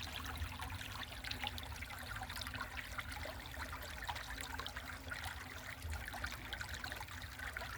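Mountain stream babbling over rocks, a steady trickling and splashing of running water.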